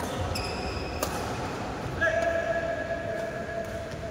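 Badminton doubles rally on an indoor court: a few sharp racket-on-shuttlecock hits in the first second with a brief high squeak among them. A steady held tone comes in about two seconds in.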